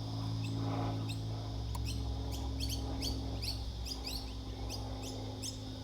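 Repeated short, high, falling chirps, about three a second, over a steady low hum.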